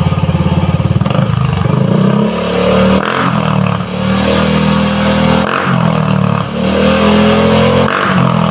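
Yamaha Mio i125 scooter's single-cylinder engine through an open-sounding AI-Tech power pipe exhaust, going from idle to hard revving about a second in, then held high with brief dips in between. Very loud.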